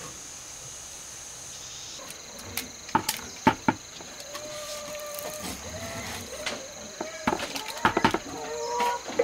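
Steady high-pitched insect chirring, with several sharp knocks from about two and a half seconds in and a wavering tone in the second half.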